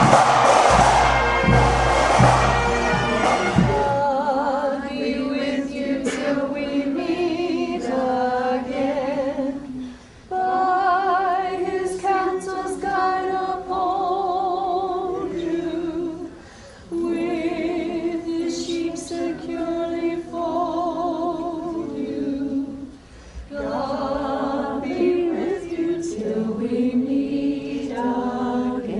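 Music with drums that stops about four seconds in. Then a choir sings without accompaniment: sustained notes with vibrato, in phrases with short breaths between them.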